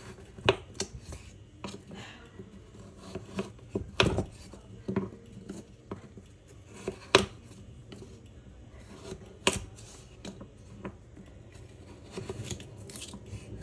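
Kitchen knife slicing carrots into strips on a cutting board: irregular sharp knocks of the blade meeting the board, about one every second.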